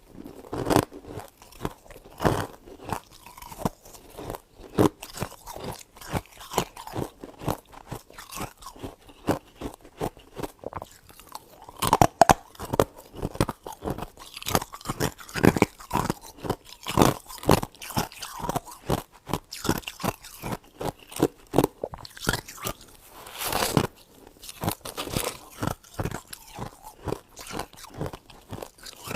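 Freezer frost being bitten and chewed: a continuous run of crisp, icy crunches, with louder bites about twelve seconds in and again near twenty-four seconds.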